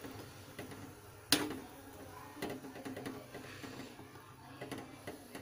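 Cookware knocking at the pot: one sharp clack a little over a second in, then a few softer taps, over a faint background hiss.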